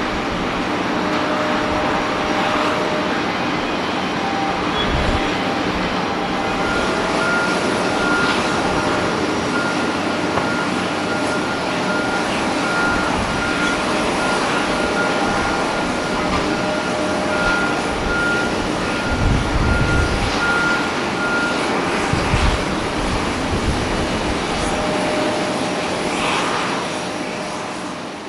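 Steady jet airliner engine noise across the airport, with occasional wind buffets on the microphone. A faint, regularly broken beeping tone runs through the middle, and the sound fades out near the end.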